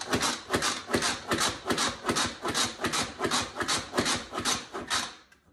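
Hand-pumped manual food processor being plunged rapidly, its plunger clacking and three bowed blades chopping onion, red bell pepper and garlic for sofrito, in quick even strokes about four a second that stop just before the end.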